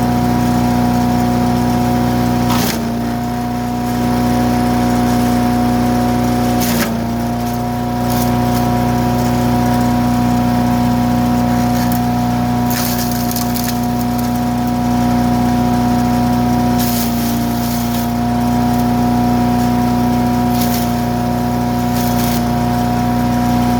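Harbor Freight wood chipper's small gasoline engine running at steady high speed, with short crackling bursts several times as material goes through the cutter; twice the engine pitch sags briefly under the load.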